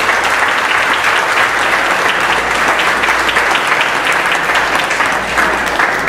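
A large seated audience applauding: steady, dense clapping from many hands.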